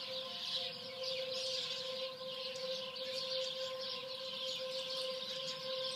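Outdoor tornado warning sirens sounding a steady, unbroken tone in the distance for a tornado warning.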